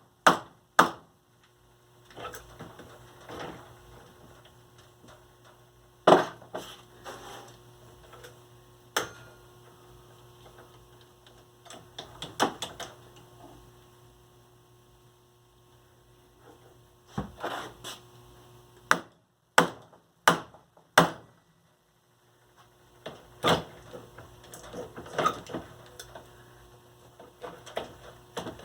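Hand tools knocking, tapping and scraping on a Maxtor hard drive's casing as it is pried apart: about a dozen sharp knocks scattered through, with scraping and rattling between them and a faint steady hum beneath.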